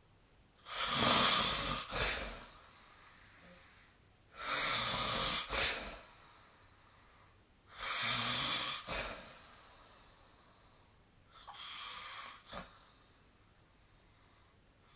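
A sleeping person snoring: four snores at a slow, even pace, about one every three and a half seconds, the last one softer.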